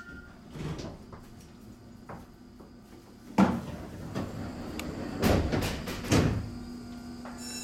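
Sliding doors of a Shizuoka Railway 1000-series electric train closing at a station: a heavy thud a few seconds in, then two more knocks about a second apart. A low steady hum starts near the end.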